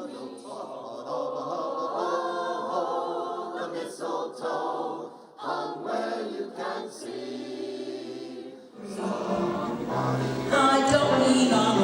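A chorus of people with dementia and their family members singing together. About nine seconds in, the music becomes fuller and louder, with a low part added underneath.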